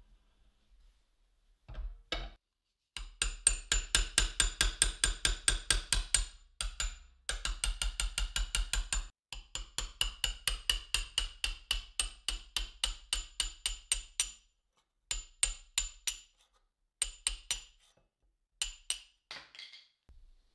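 Hammer blows on a steel punch driving an old wooden handle and its ferrule down off a knife tang held in a bench vise. The sharp metallic taps come quickly and evenly, about six a second, in long runs. Near the end they thin to short clusters of two or three strikes.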